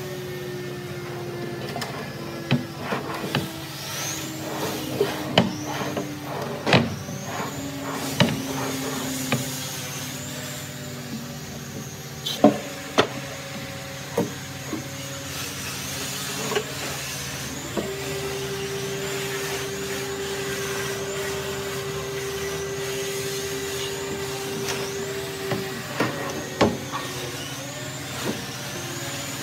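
Wooden drawer knocking and rubbing against a wooden coffee table frame as it is worked in and out of its opening: a run of sharp knocks in the first half, a few more near the end, over a steady mechanical hum.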